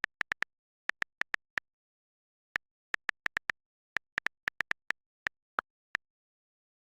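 A run of about two dozen short, high electronic blips at one pitch, coming in quick irregular clusters like a typing sound effect; one blip near the end is slightly lower.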